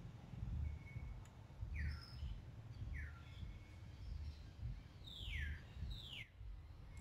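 Four short, high-pitched animal calls, each sliding downward in pitch, the last two longer and starting higher. A steady low rumble runs underneath.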